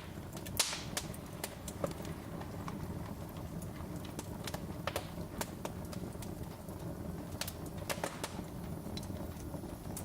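Wood fire crackling: scattered sharp pops and snaps over a low, steady rumble, with one louder pop about half a second in.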